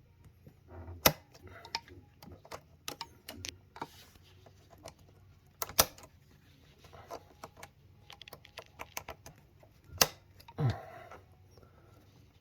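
Irregular small clicks and clacks of hand work, with louder sharp snaps about a second in, near six seconds and near ten seconds: pliers working a spring hose clamp and an electrical connector being clipped back onto a high pressure fuel pump.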